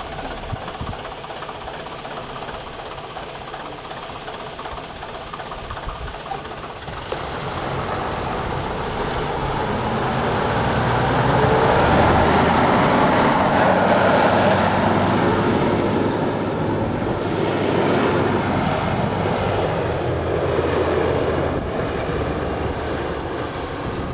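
Nissan Patrol 4x4's engine running as it drives through soft desert sand. It grows louder to a peak as the vehicle passes close, about halfway through, then fades as it heads off up a dune.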